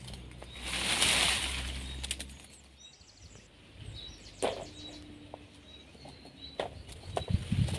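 Dry leaves and twigs rustling and crackling as the basket trap is set and adjusted, loudest in a long rustle about a second in, with scattered snaps of twigs. Footsteps crunch on the leaf litter near the end, with faint bird chirps.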